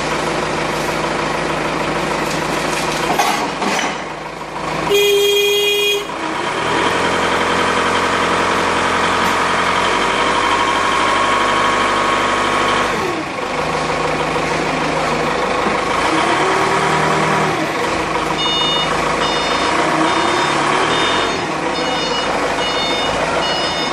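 Forklift with a paper roll clamp attachment running, its engine note rising and holding for a few seconds at a time, then falling back, as the hydraulics clamp, lift and rotate a paper roll. A horn sounds for about a second about five seconds in, and in the last five seconds a reversing beeper sounds in repeated runs of beeps.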